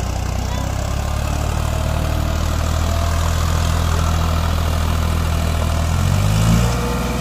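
Farmtrac 60 tractor's diesel engine, without a turbocharger, running steadily under load while it drags a land leveller through loose sandy soil. Its note rises briefly about six seconds in.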